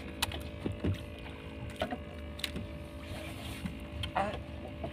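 Steady low hum of a boat engine running at idle, with a few faint clicks and knocks scattered through it.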